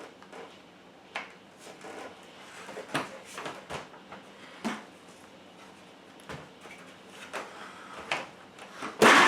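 Scattered light plastic clicks and knocks from a Hoover vacuum cleaner's beater bar and plastic head frame being handled, with a louder clatter near the end.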